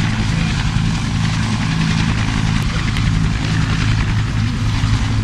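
Aircraft at an air show running steadily: a constant low drone with a hiss over it.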